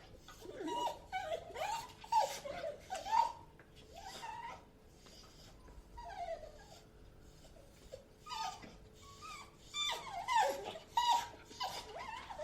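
A dog whining: many short, high whimpers that rise and fall in pitch, coming in bunches, with a quieter lull in the middle.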